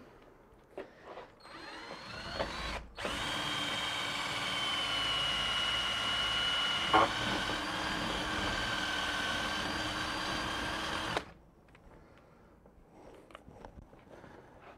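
Cordless drill with a small bit clearing out the gasket channel of a PVC window frame. The drill starts briefly about two seconds in, its pitch climbing, then runs steadily and stops suddenly about eleven seconds in. One sharp knock comes about seven seconds in.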